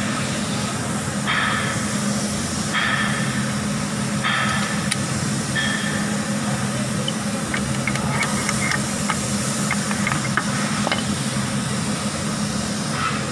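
Steady machinery hum with a brighter tone that repeats about every second and a half during the first few seconds. Light metal clinks come from about seven seconds in as a steel collar is slid onto the splined front axle shaft of a Kubota tractor.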